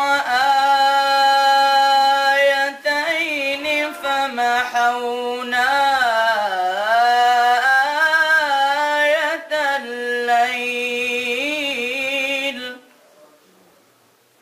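A boy's voice reciting the Quran in melodic tajweed, drawing out long held notes with wavering ornaments that glide down and back up. The recitation breaks off about 13 seconds in, leaving faint room sound.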